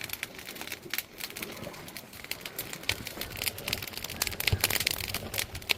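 Firewood burning, with dense irregular crackles and pops that come thicker and louder in the second half.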